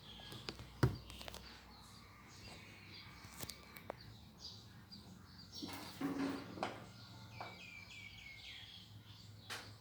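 Small birds chirping in the background, with a run of short notes stepping down in pitch near the end. A few sharp clinks and knocks of a spoon against a dish are heard as the candied fruit is served.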